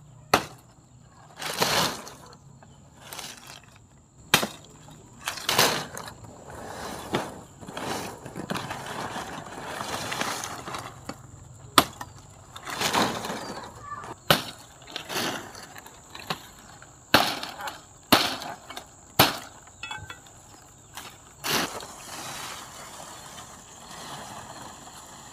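More than a dozen sharp, irregularly spaced knocks and cracks, some followed by a short rasping scrape, stopping about 22 seconds in.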